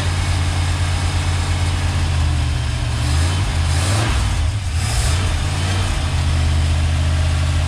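Short bus's gasoline engine running on its freshly rebuilt Holley four-barrel carburetor. It runs steadily, then its speed rises and wavers about halfway through before settling back to idle.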